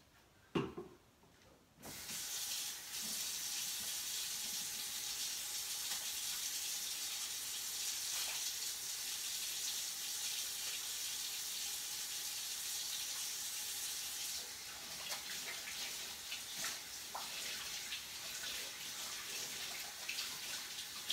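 Kitchen faucet running into a stainless steel sink while hands are washed under it. There is a short knock, then the water comes on about two seconds in. Later the flow eases, with small splashes from the hands.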